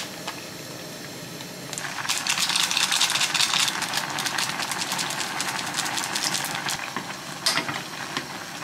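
Noodles and water boiling hard in a small saucepan on a gas burner: a steady hiss with fine crackling, louder from about two seconds in.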